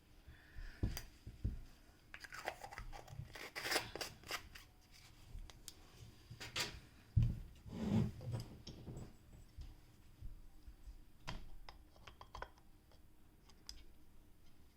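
Faint, irregular clicks, taps and scrapes of small tools and parts being handled on a workbench, busiest in the middle stretch.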